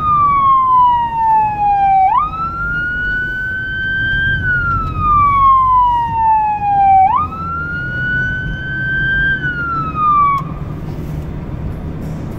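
Emergency-vehicle electronic siren on a slow wail, heard from inside the car's cabin. The tone glides down, then jumps back up and climbs again, about five seconds to each cycle. It cuts off about ten seconds in, leaving engine and road noise.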